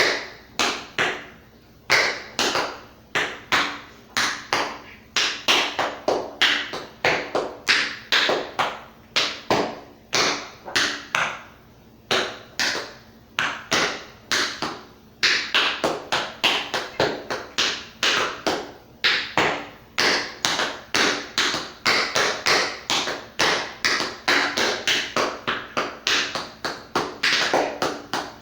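Tap shoes striking a hard floor in fast rhythmic patterns of sharp metallic taps, several a second, grouped into phrases with brief pauses between them.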